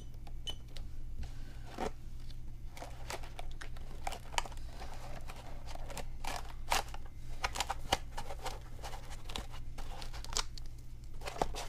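Scattered small clicks, scratches and rustles of hands handling a micro hexacopter, its battery and wire lead against a foam carrying case, over a steady low hum.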